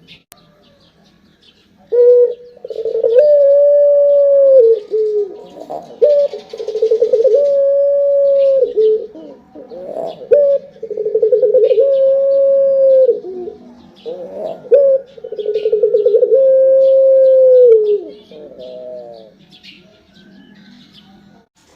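Puter (ringneck dove) cooing: four long coos, each opening with a rapid stuttering trill and settling into a long held note. Faint high chirps of small birds run underneath.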